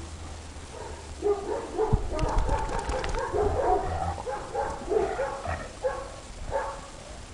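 Fila Brasileiro dogs and puppies play-fighting, giving a rapid run of short yips and whines that starts about a second in and thins out near the end.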